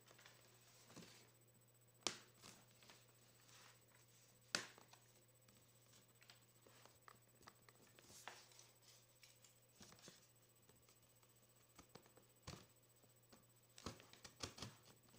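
Near silence: room tone with a low steady hum and a few scattered faint clicks and knocks, the sharpest about two and four and a half seconds in, with a small cluster near the end.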